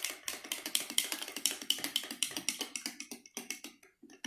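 A rapid run of light, sharp clicks or taps, several a second, that stops abruptly near the end.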